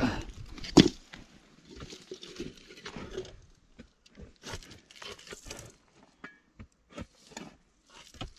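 Digging in earth and debris: irregular scrapes and knocks of a tool working the soil, with one loud knock about a second in.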